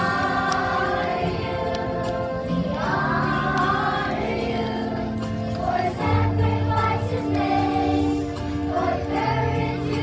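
A choir singing long held notes over an instrumental accompaniment.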